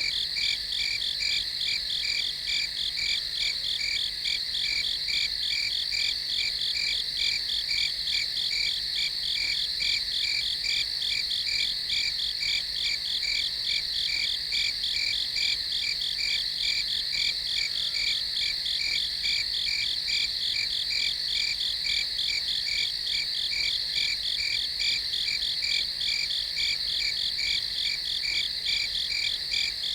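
Crickets chirping at night in a continuous chorus: a high, evenly pulsing trill that holds steady throughout.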